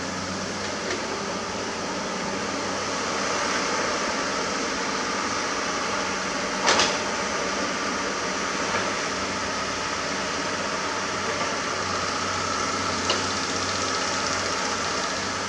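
Komatsu PC200 hydraulic excavator's diesel engine running steadily under digging work, with a sharp knock about seven seconds in and a lighter one near the end.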